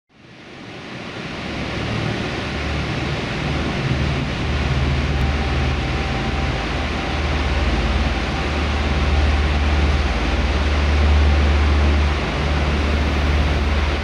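Langfoss waterfall crashing onto rock, heard up close: a steady, heavy rushing noise with a deep rumble underneath. It fades in over the first two seconds.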